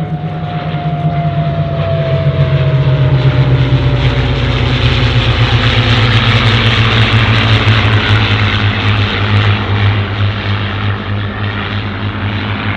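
A Hawker Hurricane, a Supermarine Spitfire and a P-51 Mustang flying past in formation, their V12 piston engines and propellers droning together. The sound grows louder over the first couple of seconds, holds, then eases off near the end, and a whining tone falls steadily in pitch as they go by.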